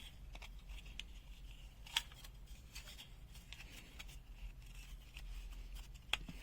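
Faint scattered clicks and light taps from handling an opened multimeter and its housing parts, with a stronger click about two seconds in and another near the end.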